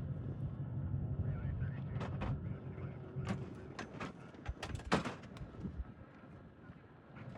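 Off-road race vehicle's engine running at a distance, its low hum fading out after about three seconds, with scattered sharp knocks and clicks, the loudest about five seconds in.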